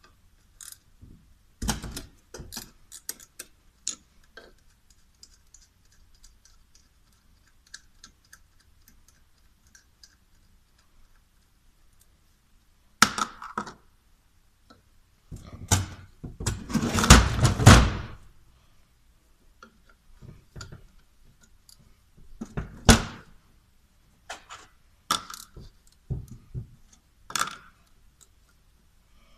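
Metal clinks, taps and knocks of turbocharger parts and hand tools being handled on a workbench as the turbo is dismantled. There are scattered single knocks, and a longer burst of clattering a little past halfway through.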